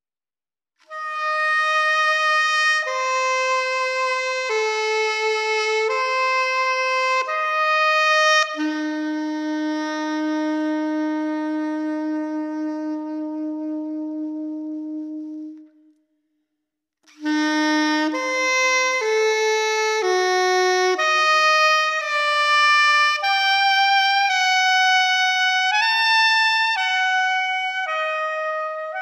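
Solo saxophone playing a slow melody, one note at a time. A long held note in the middle fades out into a second of silence, then the melody resumes with quicker notes.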